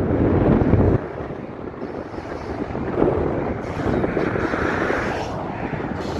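Autorack freight cars rolling past on the rails, with a steady rolling rumble. Wind buffets the microphone, heavily in the first second, then eases abruptly and picks up again.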